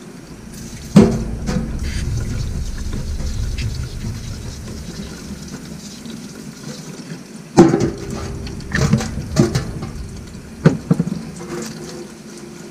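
Liquid sounds as a foam motorcycle air filter is cleaned with filter cleaner: a steady wash of liquid for about six seconds, then several sharp knocks and splashes near the end.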